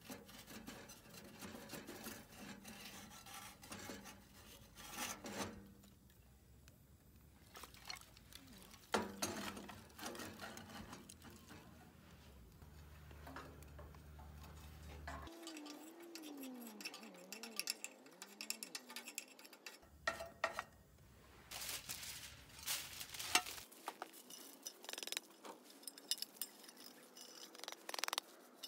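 Scattered knocks, scrapes and clinks of sheet steel as the ash box is slid out of a rocket stove's pellet burner and handled, with ash tipped out of it near the end.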